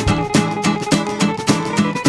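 Background music with plucked notes and a steady beat.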